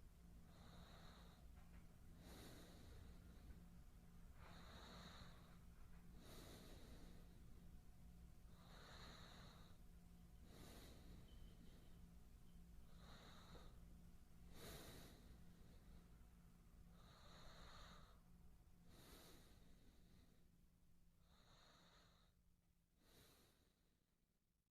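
A man's slow, faint breathing close to the microphone. Each breath in and out comes about every four seconds, six breaths in all, fading out near the end.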